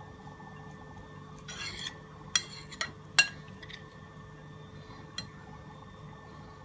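Occasional light clinks and short scrapes of a utensil against a bowl while the shredded cabbage salad is handled, with one sharper click a little past three seconds in, over a faint steady hum.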